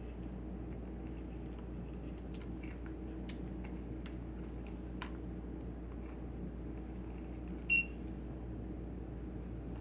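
A single short, high electronic beep about three-quarters of the way through, over a steady low hum and faint scattered small clicks.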